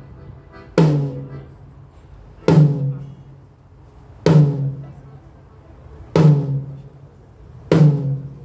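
One drum of a drum kit struck singly five times, about one and three-quarter seconds apart, each hit ringing out with a low pitched tone: a soundcheck, one drum at a time.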